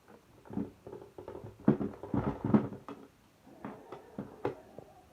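A quick, irregular series of taps, clicks and knocks, densest in the middle and thinning out toward the end.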